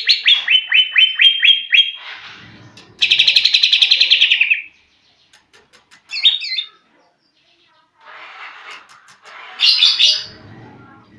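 Caged green leafbird (cucak ijo) practising its song. It gives a run of about eight quick down-slurred whistles, then a fast buzzy trill lasting about a second and a half, then short broken phrases near the end.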